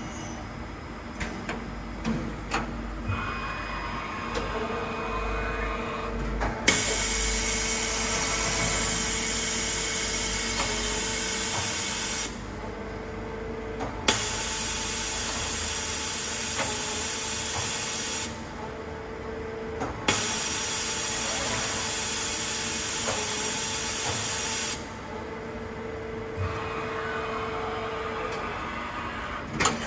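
Urawa UB-75 CNC machining center running: a few clicks, then the spindle winds up with a rising whine and runs with a steady hum. Three long stretches of loud hiss, each several seconds, switch on and off sharply, and the spindle winds down near the end.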